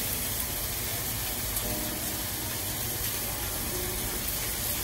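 Beef steak sizzling steadily in a hot frying pan as butter melts on top of it.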